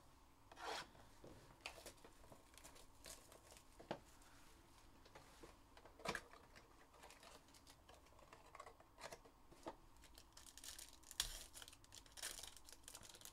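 Faint handling of a trading card box and its wrapped pack by hand: scattered soft taps and scrapes, then a run of tearing and crinkling of the wrapper near the end.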